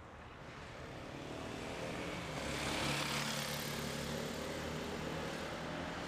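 An engine with a low hum and a hiss, growing louder over the first three seconds and then running steadily.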